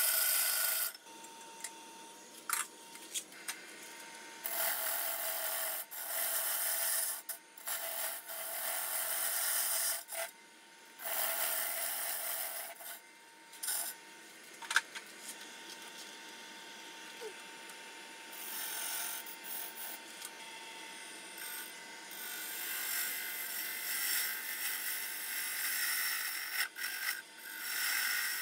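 A gouge cutting a spinning red cedar blank on a wood lathe, roughing it into round: a scraping cut in runs of a second to several seconds, with short pauses where only a faint steady whine from the lathe remains.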